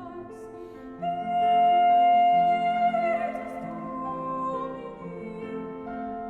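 Slow classical background music with a sustained high voice or melody line; a long held note swells about a second in and fades after about three seconds.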